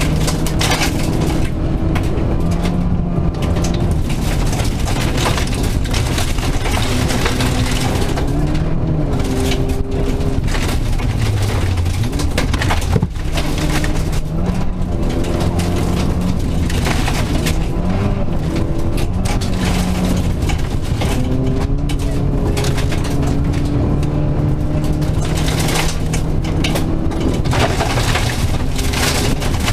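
Rally car's engine driven hard, heard from inside the cabin: the engine note climbs and drops again and again with gear changes and lifts, over a steady rumble of tyres on gravel. One sharp knock about thirteen seconds in.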